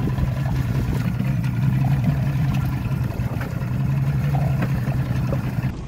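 Boat's 200 HP Mercury outboard motor running steadily at a constant low hum, with a steady hiss over it. The sound cuts off just before the end.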